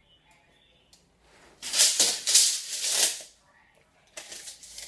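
Steel tape measure blade retracting into its case, a rattling zip lasting about a second and a half from about two seconds in. A few faint clicks and scratches follow near the end.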